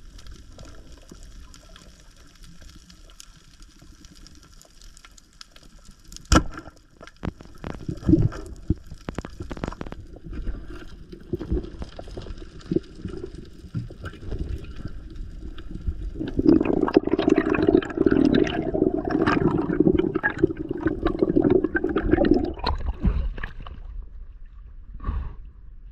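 Underwater sound picked up by a diver's camera: a faint hiss with scattered clicks and knocks. About sixteen seconds in, a louder bubbling rush of water starts and lasts about six seconds as the diver rises to the surface.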